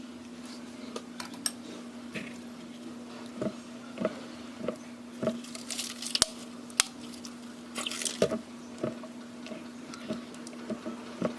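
Wet, sticky slime being squished and worked, making irregular squelches and small pops, a few of them sharp, over a steady low hum.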